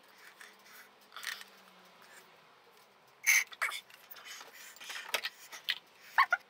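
Scattered clicks and scrapes of metal parts and tools being handled while a barber chair's hydraulic pump is taken apart, with a sharp knock about three seconds in and a run of clicks near the end.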